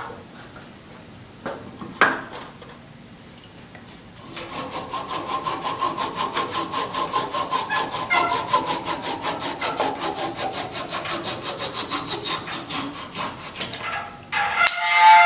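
Hand saw cutting through timber with quick, even back-and-forth strokes, about four or five a second, after a couple of sharp knocks. A loud, short ringing sound comes near the end.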